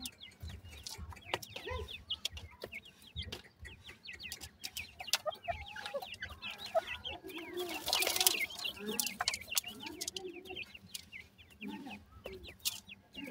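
Grey francolin chicks peeping with many short falling chirps, while an adult gives low soft clucks. A brief louder scratchy burst comes about eight seconds in.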